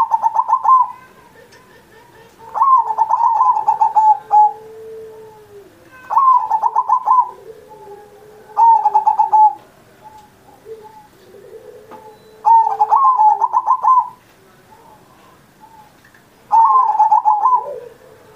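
Zebra dove (perkutut) singing its cooing song vigorously: six phrases of rapid stuttering notes, each about a second long, repeated every three to four seconds. A softer, lower drawn-out tone sounds between the phrases.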